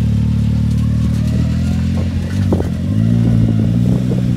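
Can-Am Maverick X3 side-by-side's tuned turbocharged three-cylinder engine running at a low, steady speed as it rolls down metal trailer ramps, with a few clanks from the ramps. About two to three seconds in the engine note dips, then rises and holds higher as it pulls away on the grass.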